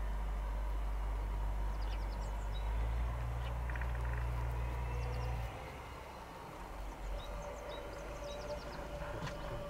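Outdoor ambience: a low steady hum that drops away about five and a half seconds in, with faint chirps of small birds scattered throughout.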